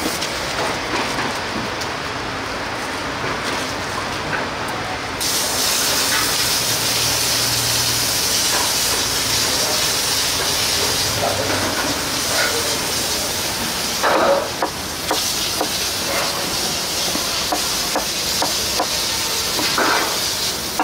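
Food sizzling in hot oil: a steady hiss that turns suddenly louder and brighter about five seconds in, with occasional clinks and scrapes of utensils.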